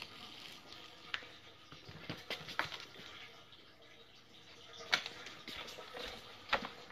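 Faint handling noise: a few scattered soft clicks and knocks, the loudest about five seconds in.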